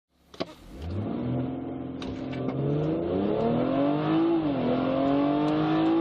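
2016 BMW 340i xDrive's turbocharged 3.0-litre straight-six under full-throttle acceleration, heard from the cabin. The revs are held steady for a moment, then climb hard through first gear, dip at the upshift to second about four and a half seconds in, and climb again.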